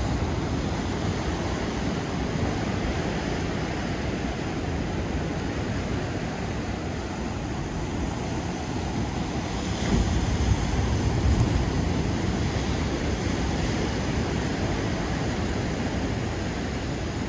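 Ocean surf: waves breaking and washing in as a steady rush of noise, swelling louder about ten seconds in.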